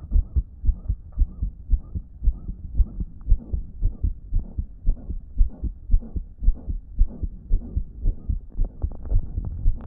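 A human heart beating in a regular rhythm, with a loud blowing murmur filling the gaps between the beats. It is the sign of a damaged heart that, in the owner's words, 'wasn't pumping effectively'.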